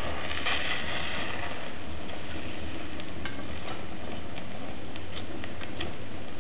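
Fire burning hard in a stove's open firebox, fed by leather shoes, while a metal poker stirs and prods the burning mass. A hissing rush in the first second or so, then scattered sharp crackles.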